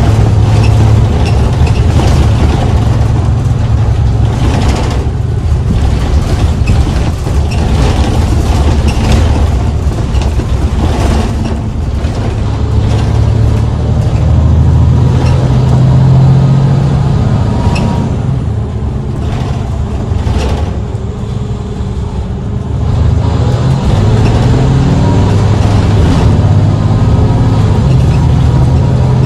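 Mercedes-Benz Citaro C2 city bus's diesel engine pulling under acceleration, its note shifting as it works through the gears. It eases off for a few seconds past the middle, then pulls hard again. Scattered clicks and rattles sound over it.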